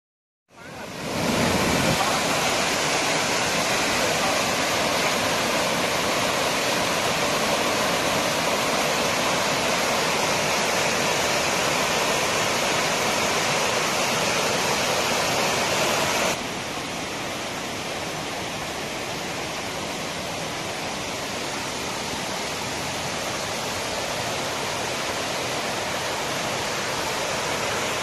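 Water rushing and splashing down a rocky stream in small cascades over boulders, a steady noise that steps down to a quieter level about sixteen seconds in.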